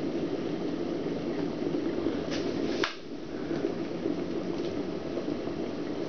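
Scarlett SC-EK21S24 stainless-steel electric kettle boiling water with a steady rumble. Near the middle its switch clicks off, the red light goes out, and the rumble eases as the bubbling settles.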